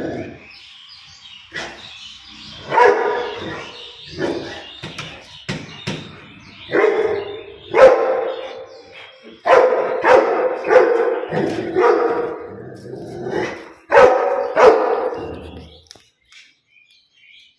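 A Rottweiler barking repeatedly, in single barks and quick runs of two or three, stopping about sixteen seconds in.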